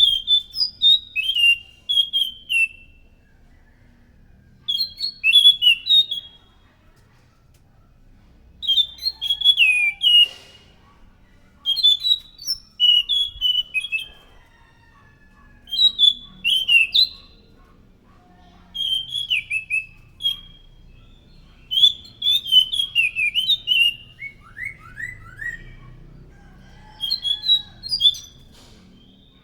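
Anis macan (scaly thrush) singing: short phrases of quick, high whistled notes repeated every few seconds, with pauses between phrases. Near the end of one phrase a brief run of lower, falling notes.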